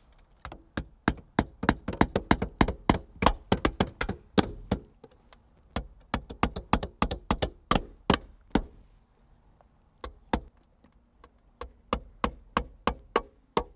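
Hammer driving nails through a skylight's metal nailing flange into the roof sheathing: quick runs of sharp blows, about three a second, broken by a few short pauses between nails.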